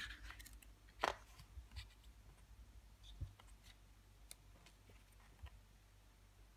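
Faint handling of a small photobook's paper pages as it is opened and leafed through: scattered soft rustles and taps, with a sharper click about a second in and another about three seconds in.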